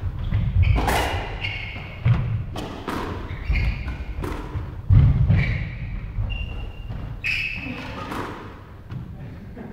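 Squash rally: the ball is struck by rackets and smacks against the court walls again and again, with shoes squeaking on the wooden floor between the hits.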